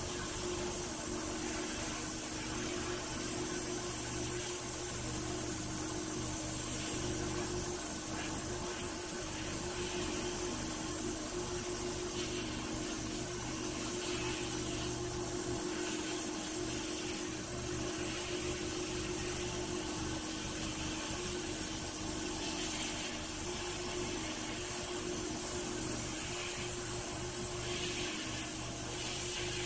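Sandblast cabinet in use: the blast gun hissing as abrasive strikes the rusty pressed-steel toy airplane wing, stripping the rust. The hiss swells and eases in short stretches over a steady machine hum with a constant tone.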